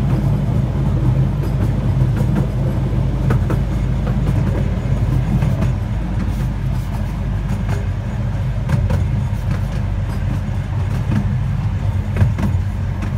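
Miniature railway passenger carriages on 12-inch gauge track rolling along at a steady pace: a continuous low rumble of wheels on rails with scattered sharp clicks and knocks over the rail joints.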